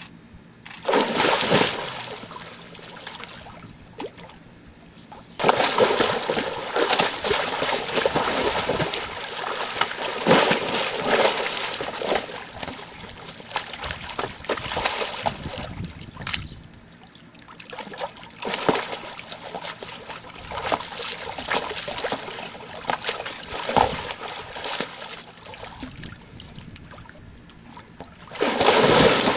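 A white tiger splashing and sloshing water in a galvanized metal stock tank, in irregular bursts of splashing with louder splashes about a second in and near the end.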